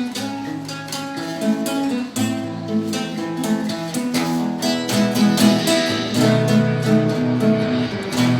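Acoustic guitar strumming chords in a steady rhythm, instrumental with no singing.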